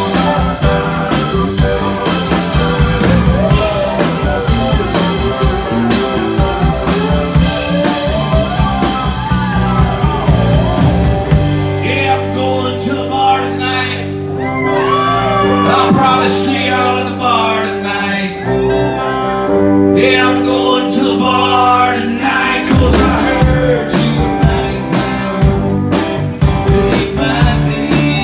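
Live country-rock band performing: lead vocals over acoustic guitar, bass, drums and keyboard. About eleven seconds in, the drums drop out for a quieter stretch of singing over long held chords, and the full band with drums comes back in about twenty-three seconds in.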